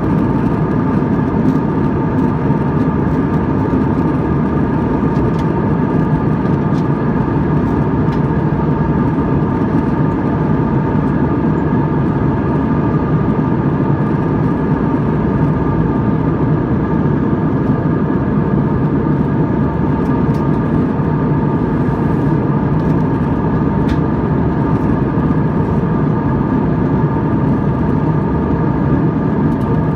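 Jet airliner's engines heard from inside the passenger cabin: a steady, even drone with a low rumble and a faint constant whine above it, unchanging throughout, as in level cruise.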